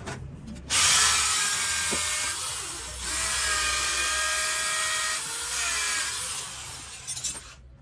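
Handheld electric drill boring a hole through a steel knife blank: a steady motor whine over the hiss of the bit cutting. It starts about a second in, eases off briefly near the middle, and stops shortly before the end.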